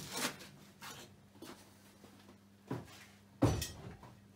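A few scattered soft knocks and clunks, with a heavier low thump about three and a half seconds in.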